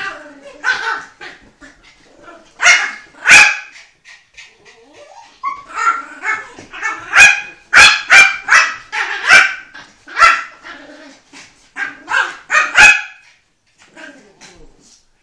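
Dogs barking repeatedly in play, from a 12-week-old beagle puppy and a chihuahua–Jack Russell cross. The sharp barks come in quick clusters, ease off briefly about four seconds in, then come thick again and trail off near the end.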